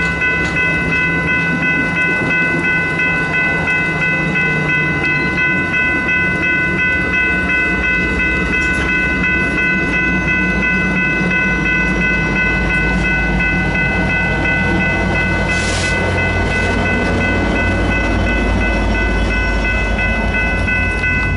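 Amtrak San Joaquins bilevel passenger cars rolling past over a grade crossing, wheels rumbling and clicking on the rails. The crossing's warning bells ring steadily over the train noise. About 16 seconds in comes a brief high hiss or squeal.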